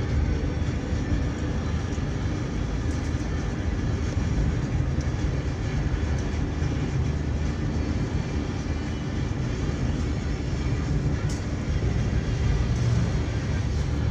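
Steady road and engine noise heard from inside a moving car, a continuous low rumble with no distinct events.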